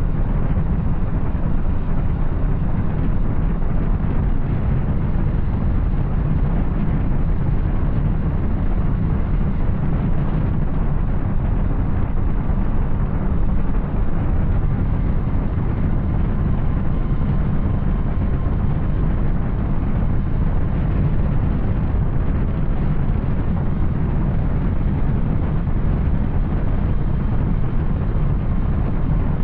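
Yamaha Tracer 900 motorcycle riding at a steady pace: its three-cylinder engine through an Arrow exhaust, mixed with steady rushing wind noise.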